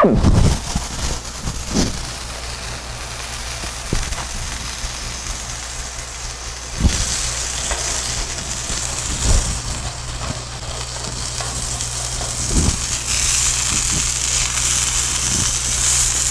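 Chicken breast and shrimp sizzling in oil on a flat-top griddle, a steady crackling hiss that gets louder over the last few seconds. Metal tongs knock sharply against the griddle plate a few times, over a low steady hum.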